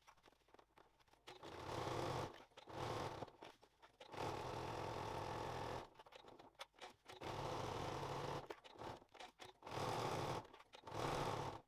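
Domestic electric sewing machine stitching through folded Cordura fabric in several short runs. It stops briefly between runs as the work is turned at the corners.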